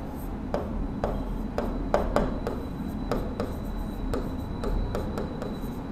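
Felt-tip marker writing on a whiteboard: a quick run of short scratchy strokes and taps, about three a second, as words are written out.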